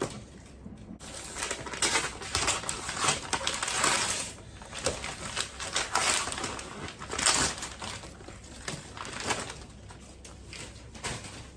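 Gift wrapping paper being torn off and crumpled by hand: irregular crackling rustles, loudest in the middle.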